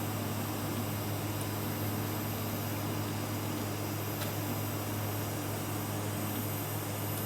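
Electric welding in progress on a nozzle: a steady low hum with a constant hiss over it, unbroken throughout.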